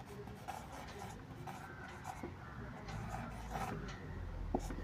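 Handwriting: a pen scratching in short irregular strokes, with a light tap near the end.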